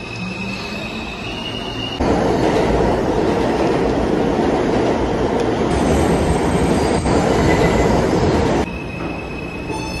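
Subway train sound: wheels squealing in steady high tones, then a loud, even running rumble that cuts in abruptly about two seconds in and cuts off just as abruptly near the end, when the squeal returns.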